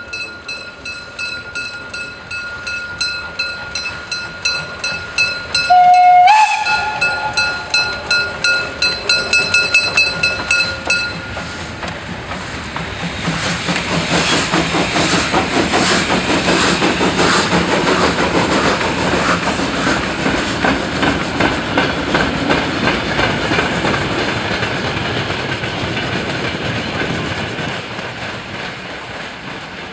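Steam tank locomotive 94 1538 (a former Prussian T 16.1 0-10-0T) pulling away with a train. Its exhaust chuffs about twice a second, and one short, loud whistle blast sounds about six seconds in. The chuffing and steam hiss then grow loud as the engine passes close, and fade as it draws away with its coaches.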